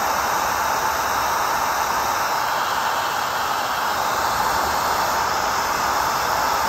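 Electric hot-air blower running steadily, blowing a continuous, even rush of air onto a PVC inflatable to heat a glued spot loose.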